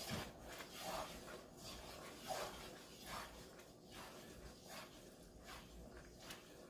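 Pot of thick purple yam (ube halaya) mixture at the boil, giving soft, short sounds at a steady pace, about one every three-quarters of a second.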